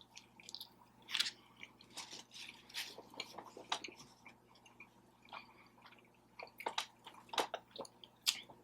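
A person chewing and eating birria tacos close to the microphone: wet, smacking mouth sounds in short scattered bursts, with a quieter stretch around the middle.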